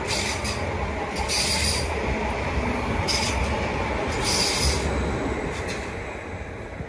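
Greater Anglia electric multiple unit running through at speed: a steady rumble and rush of wheels on rail, with a sharper hiss surging about every second and a half as each bogie passes. It fades near the end as the last coach goes by.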